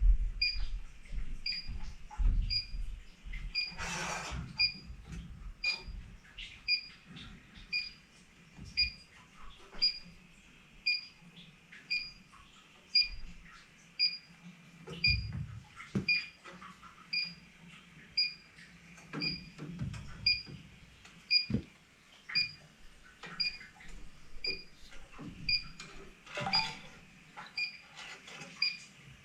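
Electronic refrigerant leak detector ticking with short, steady high beeps at about one and a half a second while it is searched around an evaporator coil for a leak, with a few knocks and rustles of handling.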